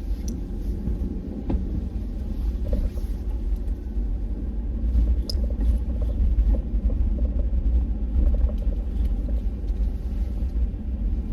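Low, steady rumble of a truck driving, heard from inside the cab, with a few faint clicks and rattles.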